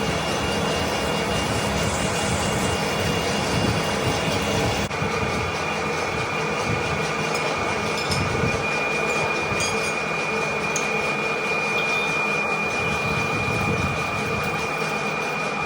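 Manual metal lathe running with a steady noise and a high-pitched whine. The whine shifts abruptly to a slightly lower pitch about five seconds in.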